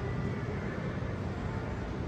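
Steady city traffic noise: a constant low rumble of cars and buses moving through a busy intersection, with no single sound standing out.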